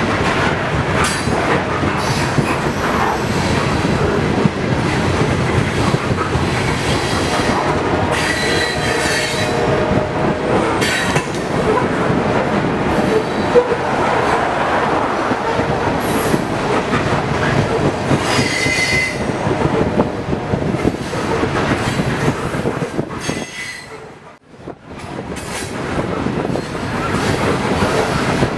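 Norfolk Southern freight train's hopper cars rolling past close by: steel wheels rumbling and clacking on the rails, with high-pitched wheel squeal coming and going several times. The sound drops away briefly near the end, then the rolling resumes.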